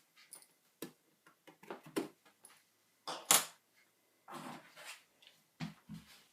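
Handling noises from the reassembled iMac G4: irregular clicks and knocks of plastic and metal parts, with a brief scrape about four seconds in and a couple of dull thuds near the end.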